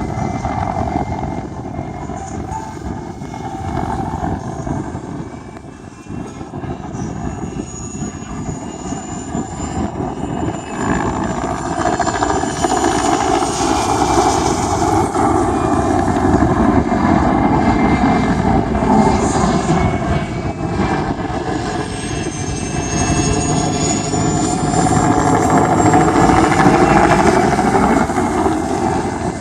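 Mi-2 helicopter in a display flight: its twin turboshaft engines and rotor make a steady rumble with a high turbine whine that shifts in pitch. The sound swells and fades as the helicopter moves past, loudest near the end.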